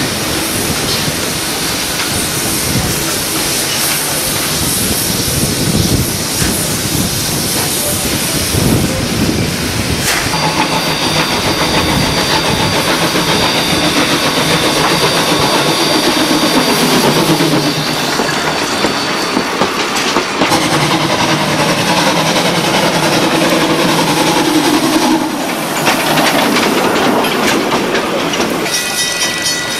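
Small steam locomotive working, with steam hissing and its carriages rattling over the track in a clickety-clack. A thin, high squeal runs through the middle stretch.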